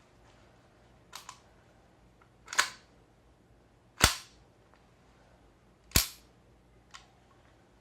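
GHK OTs-14 gas-blowback airsoft rifle firing single shots on green gas: two sharp, loud reports about two seconds apart, preceded by a softer crack and a light double click, with another light click near the end.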